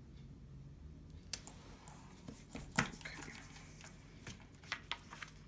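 Hands pressing and smoothing a sticker onto a paper planner page: soft paper rustling with scattered light clicks and taps, the sharpest about three seconds in.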